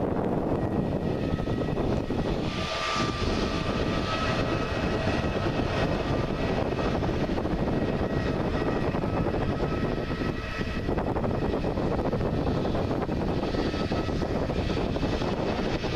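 Airbus A320neo's turbofan engines running at low taxi power, a steady rushing noise with a faint high whine.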